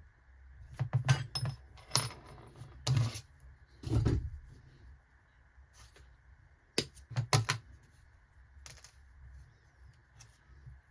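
Small metal parts and hand tools clinking and knocking, in scattered bursts: a cluster of hits in the first four seconds and another pair about seven seconds in.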